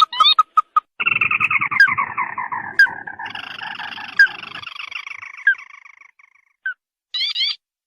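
Ruddy-breasted crake (tikusan merah) calling: a few quick rising notes, then a long descending trill lasting several seconds that fades away, followed by a couple of short sharp notes near the end.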